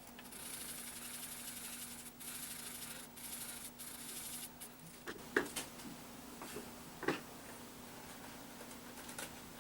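Coffee filter rubbed over a laptop heatsink to wipe off old thermal paste with cleaner: a faint, hissy scrubbing in a few strokes for about four and a half seconds, then two light knocks.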